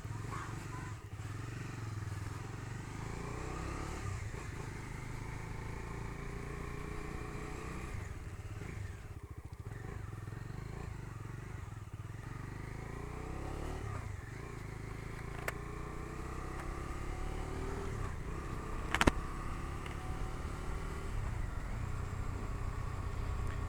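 Bajaj Dominar 250's single-cylinder engine pulling the bike along with a rider and pillion, its pitch climbing through each gear and dropping back at each shift, several times. A sharp knock cuts through about 19 seconds in.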